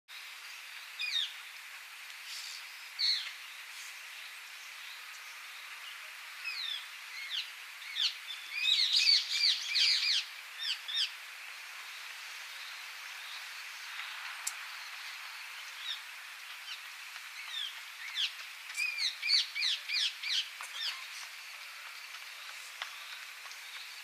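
Rose-ringed parakeet calling: a few single sharp, slurred notes, then two quick runs of them. The recordist wonders whether it is imitating a brown-eared bulbul. A steady hiss of background noise runs underneath.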